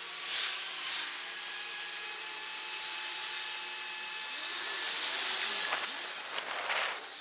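Steady rushing hiss of air and rolling noise from moving along the road, with two short louder gusts about half a second and a second in, and a faint steady whine underneath.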